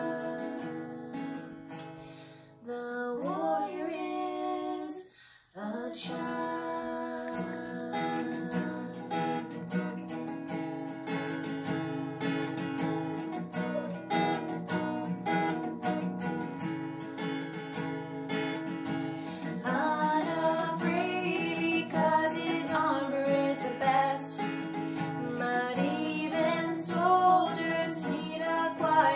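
Acoustic guitar strummed with two female voices singing. The voices stop within the first couple of seconds, the guitar plays on alone with a brief pause about five seconds in, and the singing comes back about twenty seconds in.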